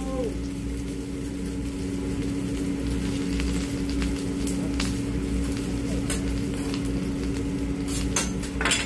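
Food sizzling on a hibachi griddle over a steady hum, with light clicks of a metal spatula and fork against the steel griddle plate, the loudest clatter just before the end.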